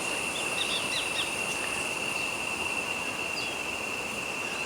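Rainforest ambience: a steady high-pitched insect drone under an even hiss, with several short bird chirps, most of them in the first second or so.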